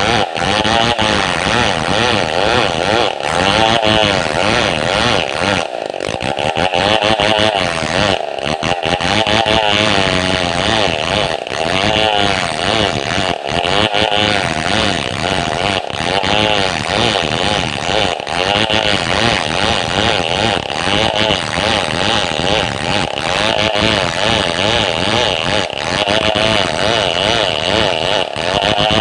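Two-stroke chainsaw running at high revs as it cuts through a hardwood log, its pitch wavering up and down under the load of the cut, with brief dips about six and eight seconds in.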